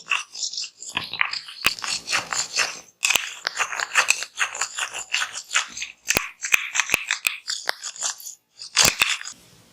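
Head massage: fingers scratching and rubbing through hair and scalp close to the microphone, a crackling, crunchy rustle in quick strokes. Sharp clicks or slaps break in several times.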